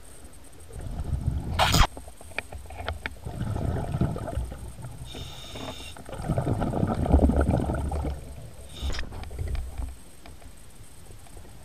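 Scuba diver breathing through a regulator, heard underwater: rumbling bursts of exhaled bubbles every two to three seconds, with a short hiss about five seconds in.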